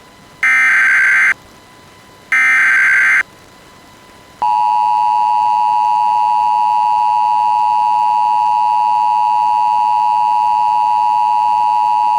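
Emergency Alert System tones: the last two of three short bursts of the SAME digital header, each a harsh warbling data tone lasting about a second, then a steady two-tone attention signal that starts about four seconds in and holds for about eight seconds.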